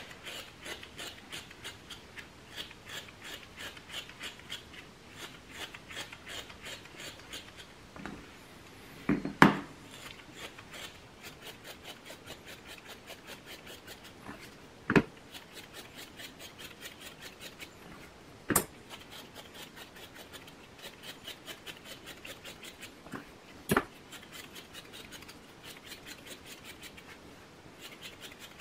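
Stripping knife hand-stripping a West Highland White Terrier's wiry coat: a steady run of short, quick scratchy strokes as tufts of dead hair are pulled out, broken by a few louder sharp knocks.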